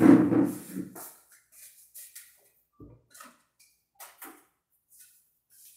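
A short, loud burst of sound in the first second, then scattered light knocks and clicks as a kitchen wall cabinet is opened and a plate is taken out, with a low thump partway through.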